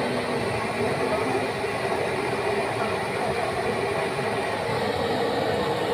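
Fritters deep-frying in a wok of hot oil, a steady unbroken sizzle.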